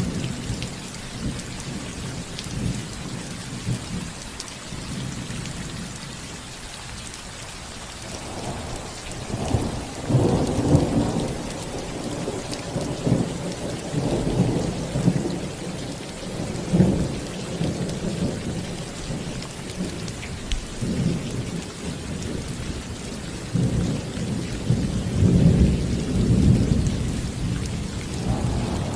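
Steady rain falling on a house roof, with low rolling thunder rumbling in repeated swells from about a third of the way in, loudest near the end.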